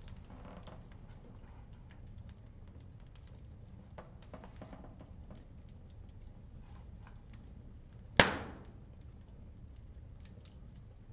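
Quiet background with faint scattered ticks, then one sharp, loud knock about eight seconds in that rings out briefly.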